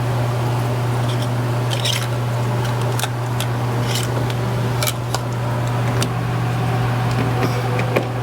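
Scattered short plastic clicks and light scrapes of ignition coils and their connectors being worked loose from the engine, over a steady low hum.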